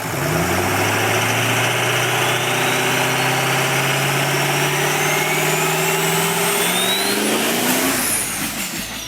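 A vehicle engine accelerating, its note climbing steadily in pitch for about seven seconds with a faint high whine rising alongside, then easing off and fading near the end.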